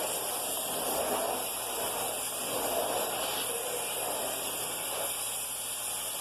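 Vacuum cleaner running with a steady, airy hiss, its sound swelling and easing every second or so.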